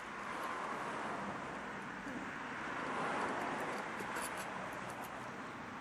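Steady hiss of background noise, with no distinct clicks or knocks standing out.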